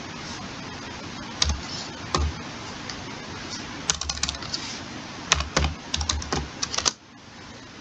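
Computer keyboard keystrokes as a name is typed. Two single clicks come first, then quick runs of keys about four seconds in and again from about five to seven seconds, over a steady hiss.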